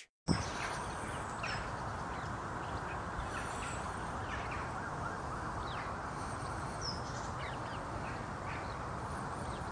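Steady background hiss with short bird calls scattered through it, typical of woodland ambience.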